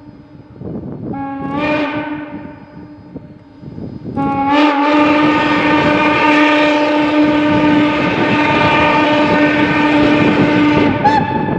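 Steam locomotive whistle blowing a short blast about a second in, then a long blast from about four seconds in that holds steady for some seven seconds and stops just before the end.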